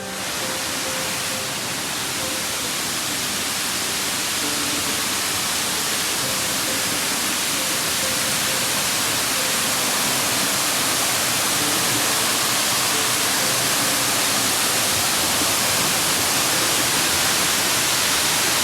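Waterfall pouring down: a steady rushing of falling water that grows slowly louder.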